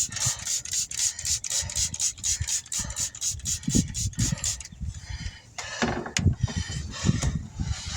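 Rapid rhythmic scraping on a tire or wheel rim, about five strokes a second, stopping a little past halfway through. Scattered knocks and handling noise follow.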